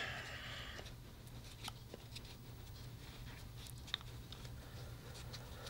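Quiet room tone with a low steady hum and a few faint clicks.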